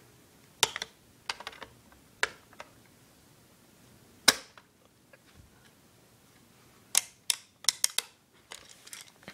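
Sharp metallic clicks and snaps at an airsoft AK-47's fire selector lever as it is tightened with needle-nose pliers, a few spaced single clicks, then a quick run of about five near the end.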